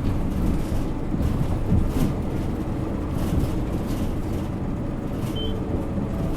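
Isuzu Erga Mio bus's diesel engine and drivetrain running on the move: a steady low rumble with occasional light rattles and clicks.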